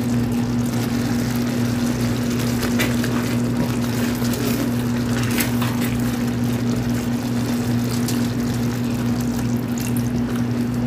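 A wooden spoon stirring and scraping through barbecue sauce simmering in a stainless steel pan, over a steady low hum.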